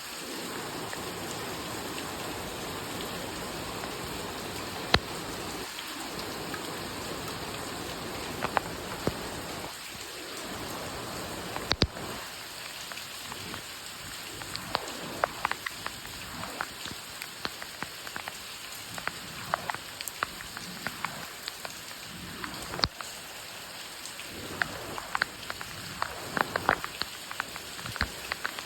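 Steady rain falling, a constant hiss with individual drops ticking sharply close by; the close drop hits come more often in the second half.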